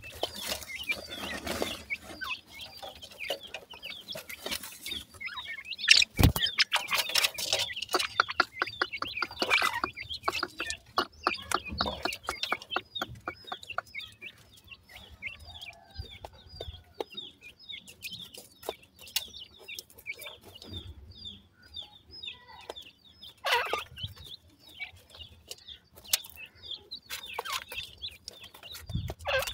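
Francolin chicks peeping in short, high, continual calls while they peck and scratch at feed in loose soil. About six seconds in there is a knock, followed by a quick run of pecking clicks and rustling that lasts until about twelve seconds in.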